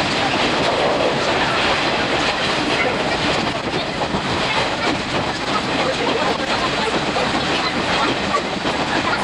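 Train running along the line, heard from inside a 50-series passenger coach hauled by steam locomotive C12 66: a steady rolling rumble of wheels on rail with a dense, rapid clatter.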